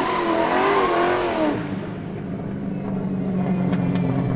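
Car drift sound effect: tyres squealing with a wavering pitch for about a second and a half, then settling into a steady low engine rumble.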